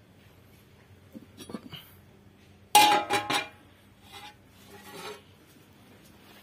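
A rusty iron cutting blade clattering onto a stainless steel plate with a ringing metallic clang about three seconds in, the loudest sound; lighter knocks and scrapes of metal come before and after it.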